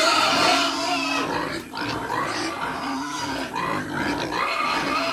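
A pen of young pigs grunting together in a continuous din, loudest in the first second and a half.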